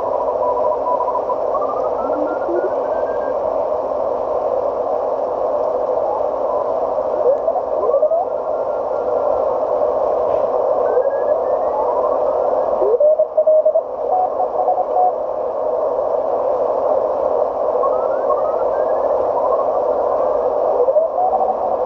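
MFJ Cub (MFJ-9340) 40 m CW receiver's speaker output as the tuning knob sweeps the band: a steady narrow band of receiver hiss, with many Morse code signals sliding up in pitch as the tuning passes over them and a few holding a steady tone for a moment.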